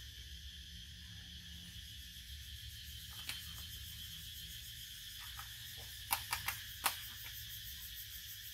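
Steady, high-pitched insect chorus, with a sharp click about three seconds in and four sharp clicks in quick succession a little past the middle.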